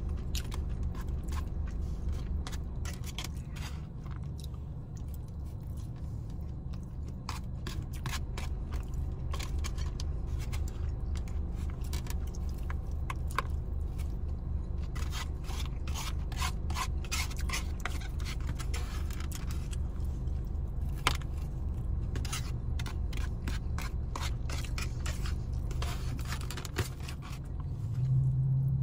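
Plastic fork scraping and clicking against a polystyrene foam takeout container as leftover rice and sauce are gathered up, with some chewing. Irregular short scratches and clicks over a steady low hum.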